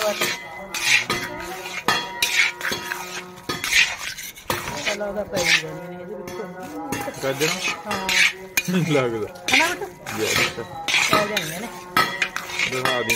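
Metal spatula scraping and clanking against a heavy metal kadhai in repeated irregular strokes, stirring grated carrots as they roast for halwa.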